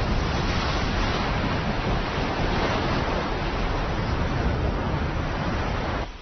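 Steady, dense noise of a volcanic eruption at sea, heaviest at the low end with no separate blasts standing out; it cuts off suddenly near the end.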